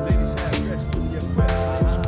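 Background hip-hop/R&B-style music with a beat: deep bass drum hits that drop in pitch, crisp hi-hat ticks and held synth notes.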